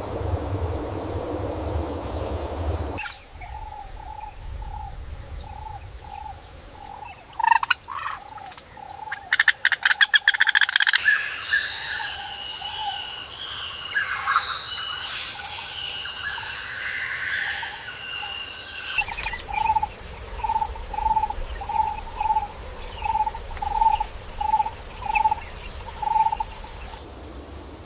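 Wild nature ambience: a steady high insect drone with an animal call repeated evenly, somewhat under twice a second, over it. Around the middle come a quick run of sharp clicks and a spell of busy bird chirping.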